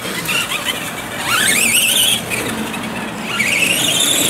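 Radio-controlled trucks' motors whining as they drive on grass, the high whine rising in pitch as a truck speeds up, once about a second in and again about three seconds in.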